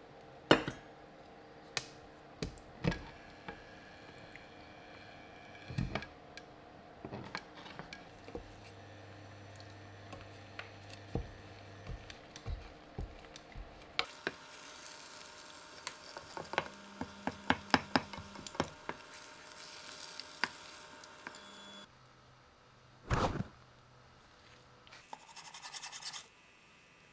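Wooden spatula and chopsticks tapping and scraping against a ceramic-coated frying pan as a thin layer of egg is spread and rolled into a tamagoyaki, with a quick run of taps about midway. Near the end a chef's knife cuts through the rolled omelette onto a cutting board, with one loud chop and then a shorter slicing rasp.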